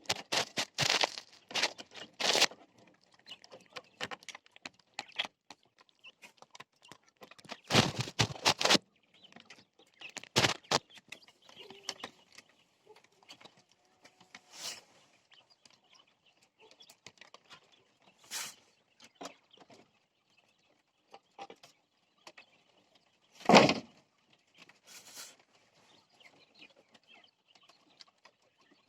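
Jumbo quail shuffling in their pen: scattered scratching and knocking with faint calls. There is a burst of clatter about 8 and 10 seconds in, and one sharp loud knock about 23 seconds in.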